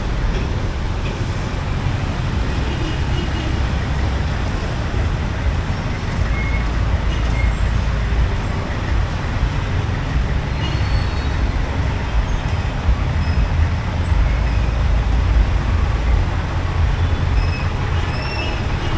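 Steady street traffic noise with a heavy low rumble, without a break, and a few faint short high chirps scattered through it.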